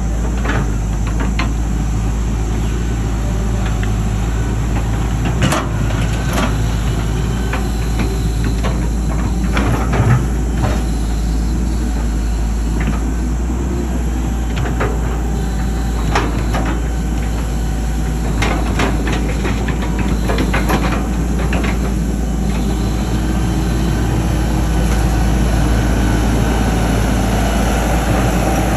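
Hitachi EX120 hydraulic excavator's diesel engine running steadily under working load as it digs, with scattered sharp knocks and clanks from the machine at work.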